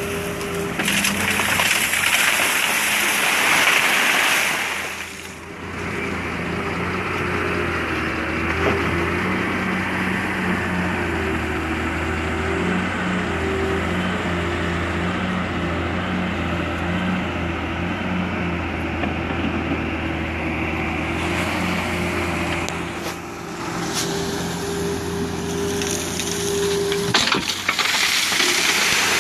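Caterpillar 325L excavator's diesel engine running under hydraulic load, its pitch shifting as the arm works. Near the end a bucketful of river gravel pours and rattles into a dump truck's steel bed, with a similar loud rushing burst in the first few seconds.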